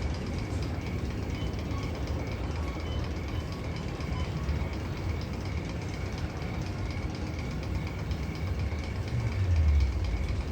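Steady low, train-like rumble with a faint, fast, even ticking over it, swelling louder briefly about nine seconds in.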